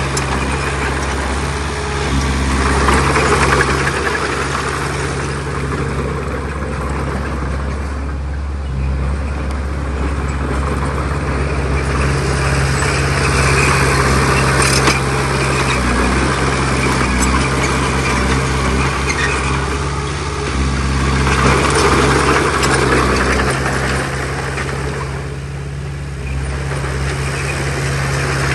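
Heavy diesel earthmoving machinery running steadily, swelling louder three times.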